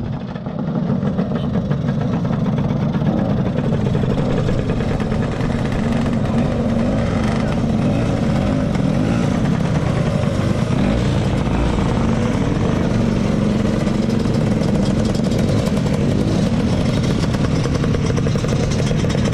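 Several motor scooters riding slowly past one after another, their small engines running steadily at low speed. Crowd voices are mixed in.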